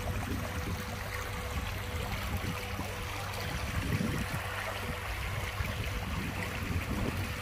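Shallow upland river running over stones and gravel in a steady, rippling rush: the upper River Esk.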